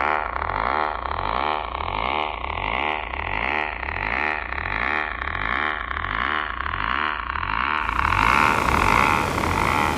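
Beatless intro of a hardtek (tribe tekno) track: a buzzing synth drone pulsing in an even rhythm a little over twice a second, its tones slowly falling. About eight seconds in, a rising hiss opens up over it.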